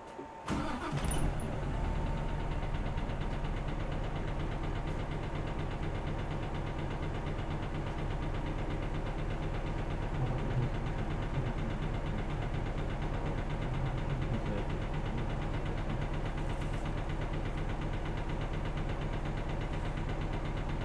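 The diesel engine of a 2001 city bus idling steadily with a low, even throb, heard from inside the bus while it waits to depart. A short burst of noise comes about a second in.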